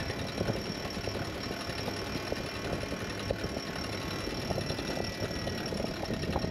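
The catamaran's engine running steadily at low revs, with faint scattered clicks.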